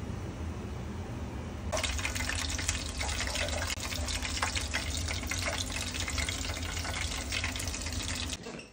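Hot oil sizzling and crackling as battered squid rings deep-fry, setting in sharply about two seconds in over a steady low hum. The crackle and hum cut off together just before the end.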